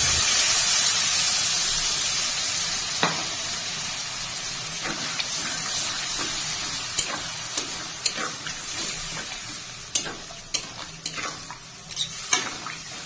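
Loud sizzling as water hits chicken pieces frying with spices in mustard oil in a hot metal kadai, dying down steadily over several seconds. A metal spatula stirs and scrapes in the pan, its sharp clicks growing more frequent toward the end.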